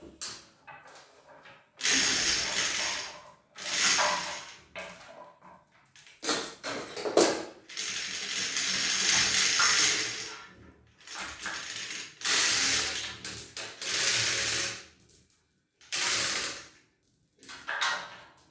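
Hand chain hoist being worked: its metal chain rattles and clinks and the block ratchets in repeated bursts of one to two seconds while it moves the heavy cast-iron engine crankcase.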